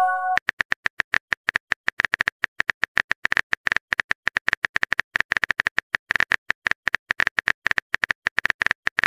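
Chat-app keyboard typing sound effect: a fast, slightly uneven run of short sharp taps, about eight to ten a second, as a message is typed out letter by letter. It opens with the last fraction of a short chime.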